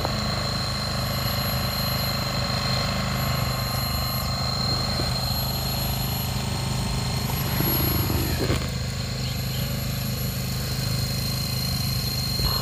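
Wood-planing machine running steadily while planing boards, a continuous machine drone with a slight swell about eight seconds in.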